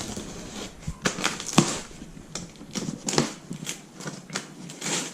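Scattered clicks, taps and rustles of packaging being handled.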